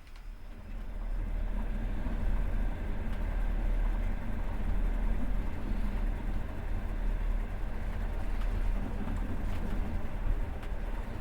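Passenger train running on the rails, heard from inside the carriage: a steady low rumble that swells up about a second in, with a few faint clicks.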